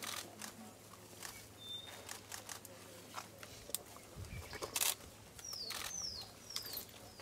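Young elephants feeding on leafy branches: scattered sharp snaps and crackles of twigs and leaves being pulled and chewed, with a dull thump about four seconds in. In the second half a bird calls four quick high whistles, each falling in pitch.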